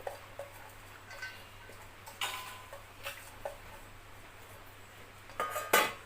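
Light clinks and taps of kitchen bowls and a spoon as an ingredient is added to the chicken, a few scattered small knocks with a louder double clatter near the end.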